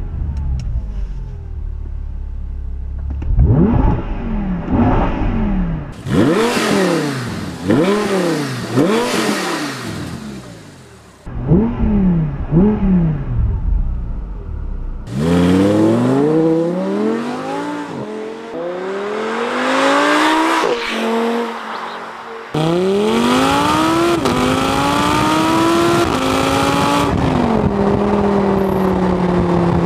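2014 Audi R8 V10 Spyder's 5.2-litre V10, heard through its exhaust, idling just after starting, then revved in neutral in a series of short blips. From about halfway the car accelerates hard, the engine note climbing and dropping back at each of several upshifts.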